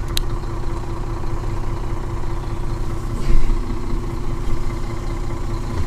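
Truck's diesel engine idling steadily, heard from inside the cab, with the air system pumped up ready to move off.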